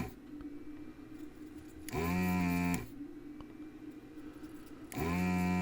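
Duratool desoldering station's built-in vacuum pump switching on in short humming bursts of under a second, about two seconds in and again near the end, sucking molten solder from a chip's pins.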